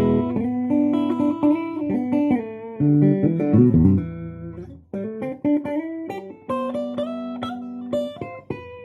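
A 1980s Japanese Daytone Privilege guitar being played in a sound test. Picked low notes and chords come first, with a quick run of notes about three to four seconds in. After a brief dip, higher single notes and chords follow.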